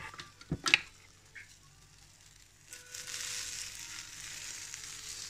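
A few sharp clinks and knocks from a spoon in a bowl of cheese batter. About two and a half seconds in, a steady sizzle starts as the batter lands on the hot plates of an electric waffle maker.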